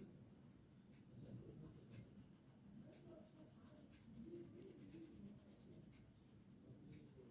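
Faint scratching of a coloured pencil shading back and forth on paper.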